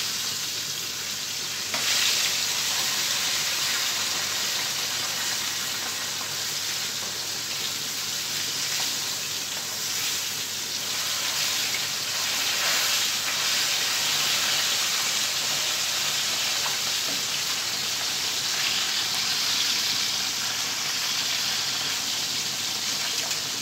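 Pieces of banga mary fish frying in hot oil in a pan: a steady sizzle as the pieces are turned over with metal tongs.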